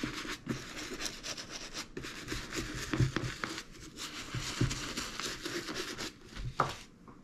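Round bristle dauber brush scrubbing wet saddle-soap lather into the leather of a work boot, in a run of uneven rough brushing strokes. The brushing stops about six seconds in, followed by a short knock.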